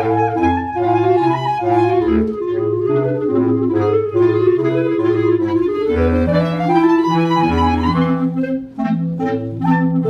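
Clarinet trio of two clarinets and a bass clarinet playing. The bass clarinet plays a line of repeated low notes under the two clarinets' moving parts, and one clarinet sweeps upward in a long rising run from about six seconds in.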